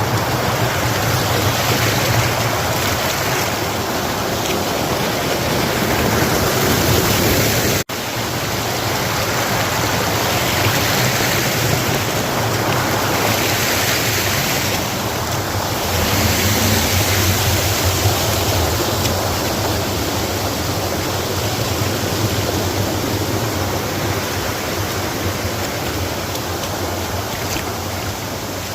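Waterfall's falling water rushing steadily, cutting out for an instant about eight seconds in.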